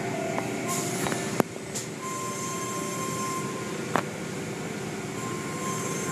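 Automatic tunnel car wash running over the car: a steady rush of spraying water and machinery with a faint whine, and cloth strips and brushes washing across the body. A sharp knock comes about a second and a half in, and another about four seconds in.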